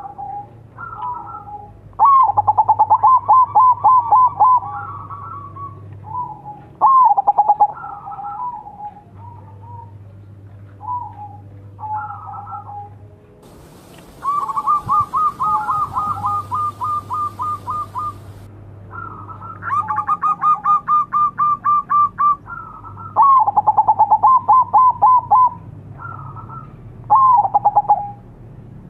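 Zebra dove (perkutut) cooing: loud repeated phrases of a few short notes and then a quick even run of about ten coo notes, coming every few seconds.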